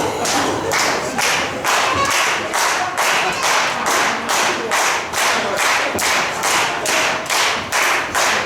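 Audience clapping in unison in a steady rhythm, about two to three claps a second, with a few voices calling out underneath.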